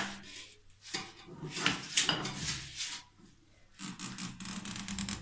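Irregular rubbing and scraping as hands work at a bidet's water inlet fittings and flexible hose connections. It comes in two stretches with a short lull about three seconds in.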